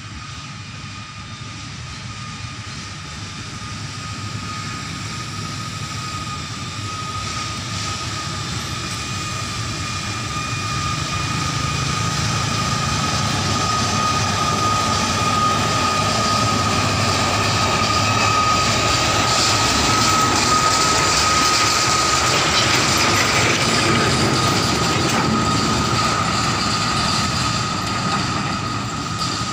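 Narrow-gauge diesel plantation locomotive hauling rubber-latex tank wagons, approaching and running past: engine running and wheels on the rails, with a steady high whine throughout. It grows louder, peaks about two thirds of the way through as it passes, then eases off slightly.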